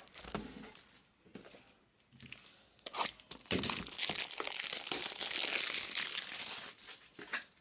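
Trading-card pack wrapper being torn open and crinkled by hand, with a few sharp crackles at first and then dense crinkling, loudest for about three seconds in the middle.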